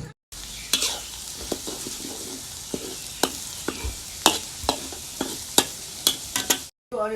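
Food sizzling as it fries in a pan, with a cooking utensil stirring it and knocking against the pan a dozen or so times.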